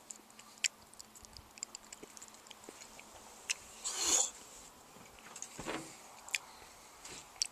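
A man's mouth and breath sounds while the superhot pepper burns his mouth: faint scattered lip smacks and mouth clicks, a short sharp hissing breath about four seconds in, and a lower, heavier breath a little later.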